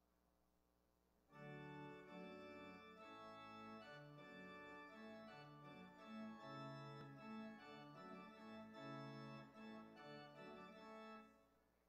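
Quiet organ music: a short passage of held chords that starts about a second in and stops shortly before the end.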